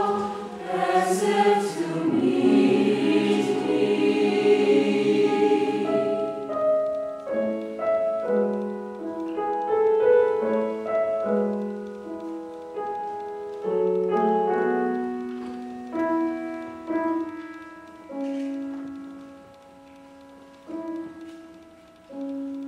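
Mixed choir singing loudly together, then about six seconds in the voices drop out and a keyboard instrument carries on alone with a quiet, slow passage of single notes and chords that fades.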